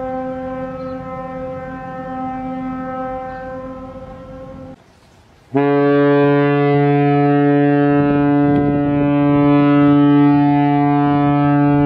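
Ship's horns of two South African Navy Warrior-class patrol vessels. A steady horn blast stops about five seconds in. After a short pause a second, deeper and louder horn sounds one long steady blast.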